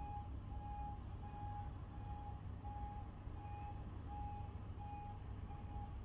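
A vehicle's reversing alarm beeping in a single steady tone, about three beeps every two seconds, over a low steady rumble.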